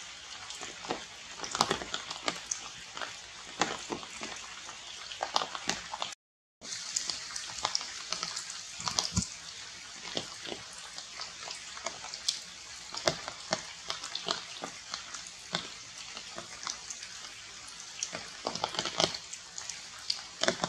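Rain drips pattering on wet foliage: irregular sharp ticks and crackles over a steady hiss. The sound cuts out completely for a moment about six seconds in.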